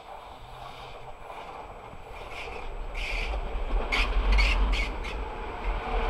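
Czech Railways class 471 CityElefant double-deck electric multiple unit approaching and passing close. Its rumble grows steadily louder, and from about two seconds in a series of sharp wheel clacks over the rail joints is heard.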